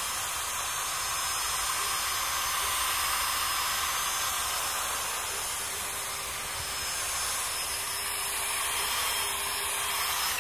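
Hand drill spinning a small foam buffing pad against a plastic headlight lens, polishing it with compound: a steady whirring hiss.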